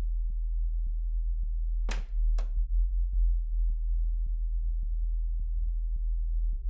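Horror-film sound design: a steady low drone with faint, evenly spaced ticks a little under two a second. About two seconds in come two sharp clicks, half a second apart.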